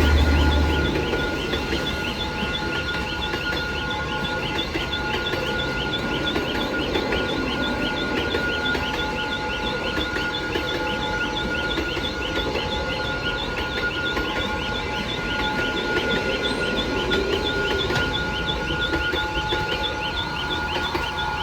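Train passing by on the track, its carriages rolling past with a steady rumble. A locomotive's low engine drone fades out within the first second.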